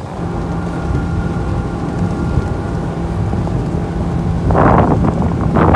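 Boat engine running at speed with a steady drone under a rushing, rumbling background. From about four and a half seconds in, gusts of wind buffeting the microphone become the loudest sound.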